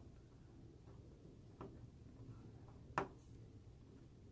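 Small flathead screwdriver clicking against a circuit-board terminal block screw as the screw is backed out: a faint tick about a second and a half in and a sharper click about three seconds in, over low room tone.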